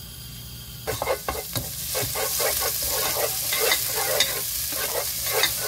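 Minced garlic sizzling in hot oil in a nonstick pot, stirred with a wooden spatula. The sizzle starts about a second in and builds, with frequent short crackles and spatula scrapes.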